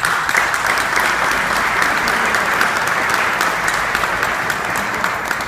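A crowd applauding: many hands clapping together in a dense, steady patter that eases slightly near the end.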